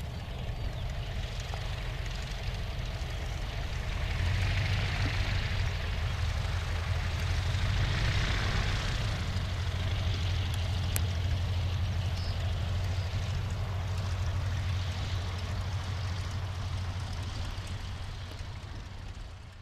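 A 1917 Bristol F.2B Fighter biplane touching down and rolling out on grass, its engine running steady at low power. The engine gets louder about four seconds in and fades away near the end.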